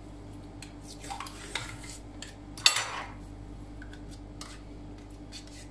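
Metal spoon clicking and scraping in a plastic yogurt cup, a series of small clicks with one sharper click about two and a half seconds in. A faint steady hum runs underneath.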